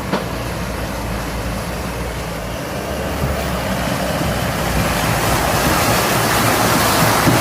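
Toyota Hilux engine rumbling low while it drives through a creek crossing, with a rushing of water that grows louder over the second half. A knock right at the start.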